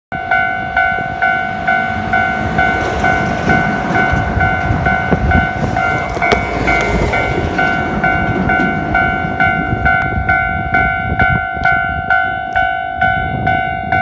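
Japanese level-crossing warning bell ringing in a steady, even clang, nearly three strikes a second. A rumble of something passing swells under it in the middle and fades.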